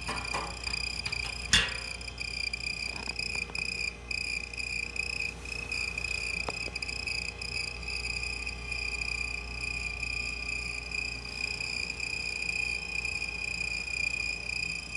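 Old refrigerator giving off a steady, high-pitched chirping squeak, like a mouse or cricket: the noise of a dry part that the owner cures by spraying WD-40. A single sharp click sounds about a second and a half in.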